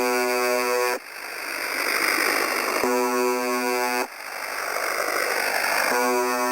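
UVB-76 'The Buzzer' shortwave number station received on 4625 kHz: a harsh buzz tone about a second long repeating roughly every three seconds. Three buzzes fall in this stretch. Between them is radio static hiss that drops out as each buzz ends and swells back up.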